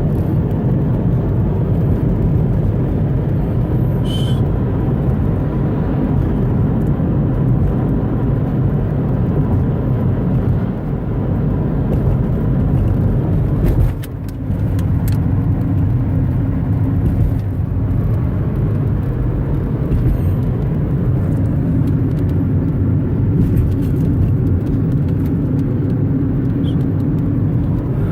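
Steady low road and engine rumble of a moving car, heard from inside the cabin through a cell phone's microphone. It dips briefly about halfway through.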